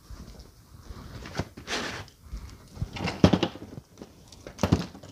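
Handling noise as shoes are picked up and set down on a table: a few short rustles and knocks, the loudest a little after three seconds in.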